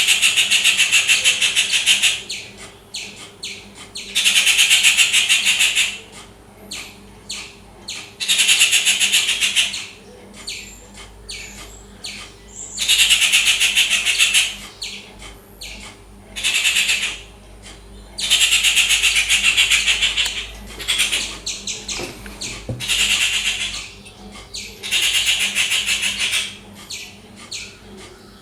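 Rufous treepie giving loud, harsh, grating calls, each about two seconds long and repeated roughly every four seconds, with short chattering notes in between.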